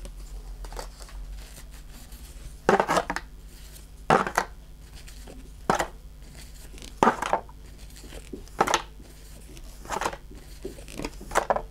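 Pokémon trading cards being slid one at a time off a small stack in a gloved hand: a short papery swish about every second and a half, seven in all.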